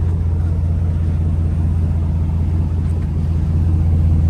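2005 Chevrolet SSR's 6.0-litre LS2 V8 idling steadily on a cold start, a low, even exhaust rumble from the tailpipes that is relatively tame at idle.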